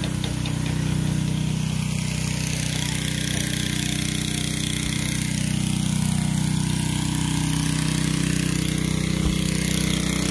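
A small engine running steadily at a constant speed, an even drone that holds through the whole stretch.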